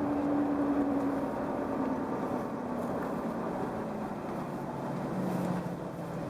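Ford F-150's engine and road noise from inside the cab at full throttle, a steady engine tone stepping down in pitch over the first few seconds. The truck is misfiring, shaking and not gaining speed, with no check engine light on.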